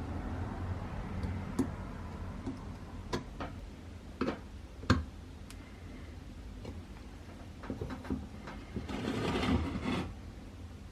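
Scattered sharp clicks and knocks of metal lantern parts being handled, with a burst of noise about a second long near the end.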